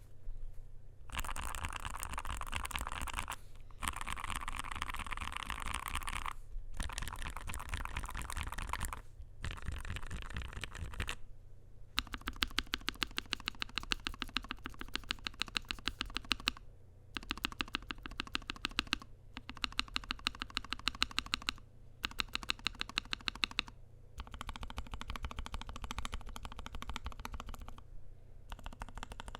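Typing on a NuPhy Air60 V2 low-profile mechanical keyboard with lubed Gateron Low-profile 2.0 Red linear switches: fast runs of key clacks in bursts with short pauses between them. Through the middle the keystrokes come as evenly spaced single clicks.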